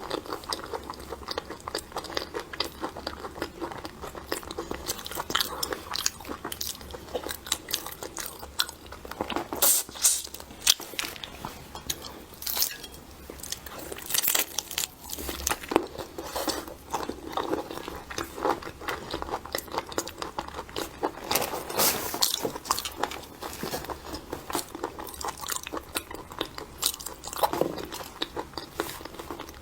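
Close-miked eating of seafood: continual crunching and chewing, with many sharp, crackling bites.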